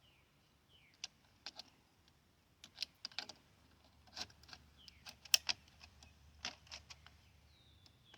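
Scattered light metallic clicks and clacks of an M1 Garand en bloc clip and .308 cartridges being handled and loaded, irregular and a few per second, with a couple of sharper clacks near the middle.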